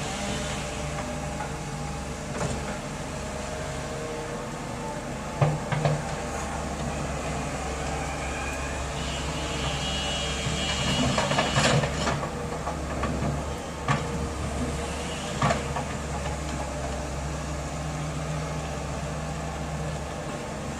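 A steady low mechanical hum, like an engine running, with several sharp knocks and a brief high squeal about halfway through.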